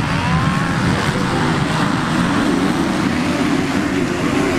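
Motocross bike engines running on the track, a dense, steady engine noise with one rising rev briefly near the start.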